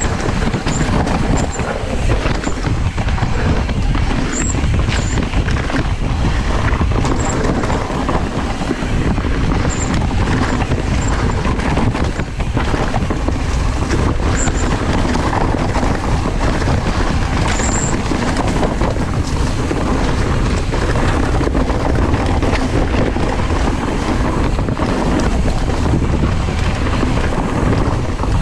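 Wind buffeting the microphone over the rattle and knocking of a mountain bike rolling fast over a rough dirt trail strewn with dry leaves, its tyres crunching and rumbling steadily. A few short high squeaks cut through.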